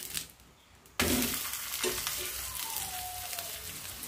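Oil sizzling under a ragi and drumstick-leaf adai that has just been flipped on a dosa griddle. The sizzling drops away briefly near the start and comes back suddenly about a second in, then runs on steadily.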